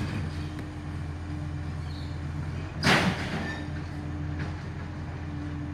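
Garbage truck running with a steady drone and a held tone while its arm lifts a recycling bin. A brief, loud clatter comes about three seconds in.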